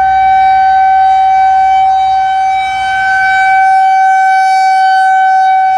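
Federal Signal 2001 outdoor warning siren sounding its weekly test. It holds a single steady tone, very loud, and its loudness dips and swells slowly as the rotating siren head sweeps around.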